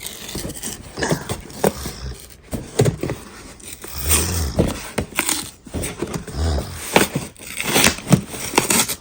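Cardboard box being pried and pulled at where its flaps are glued shut: irregular scraping and rubbing of cardboard with many sharp clicks and crackles, and a few dull bumps.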